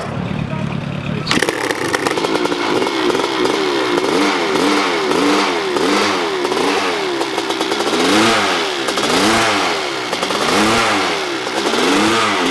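Yamaha dirt bike engine catching about a second in, then revved in repeated blips, its pitch rising and falling roughly once a second.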